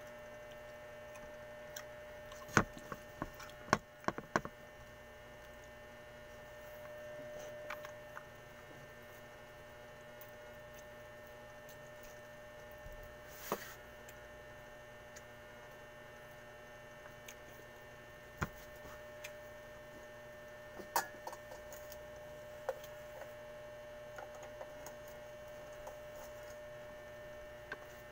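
Steady electrical hum with scattered short clicks and taps of someone eating rice and fish by hand, a cluster of sharper ones a few seconds in and more spread out after.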